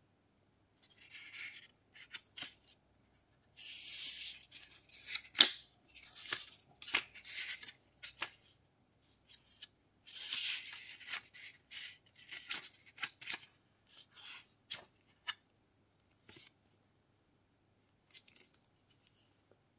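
Paper booklet being handled and its pages turned by gloved hands: short bursts of paper rustling and sliding, broken by sharp little clicks and taps, the loudest a sharp tap about five seconds in. Near the end the stiff black card stock is handled with a few fainter crackles.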